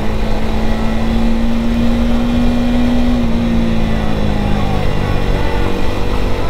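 KTM Duke 250's single-cylinder engine running while riding, under heavy road and wind noise. Its note holds steady, then eases lower about halfway through.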